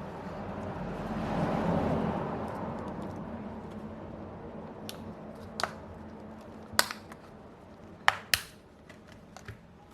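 A phone's clip-on back cover being worked off by hand: a rubbing scrape that swells and fades over the first few seconds, then a few sharp clicks spread over the rest.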